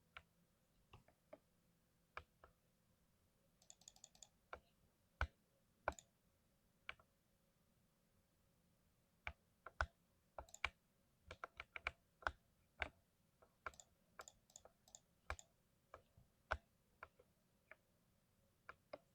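Keystrokes on a 60% mechanical keyboard with lubed switches: separate clicky taps at an uneven pace, sparse at first with a pause about seven seconds in, then a quicker run of typing.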